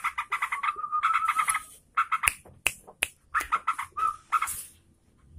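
Trucukan (yellow-vented bulbul) singing in rapid chattering runs of short notes, including one briefly held note. A few sharp, click-like notes come in the middle, then another quick burst.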